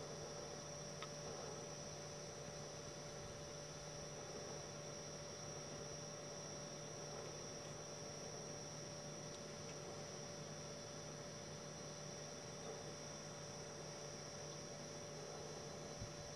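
Faint steady hum and hiss with a few constant tones, the recorder's own noise, with a faint click about a second in.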